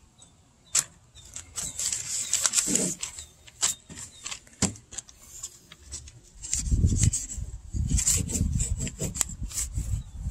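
Knife sawing and scraping along a walleye fillet to separate the skin from the flesh, on top of newspaper: scattered clicks and rasping strokes at first, then a denser run of rubbing strokes in the second half.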